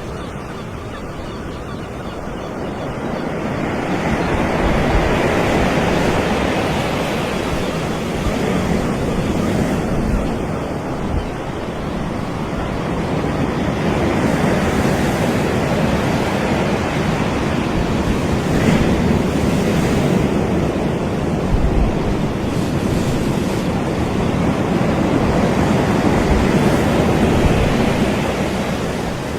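Surf washing onto a beach: a continuous roar of breaking waves that swells and eases every several seconds.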